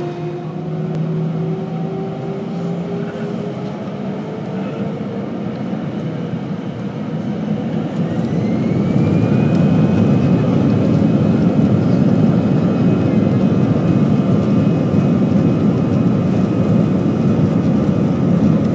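Airbus A320 jet engines spooling up to takeoff power, heard from inside the cabin over the wing: whining tones climb in pitch, and about eight seconds in the engine noise swells into a louder, steady rush as the takeoff roll gets under way.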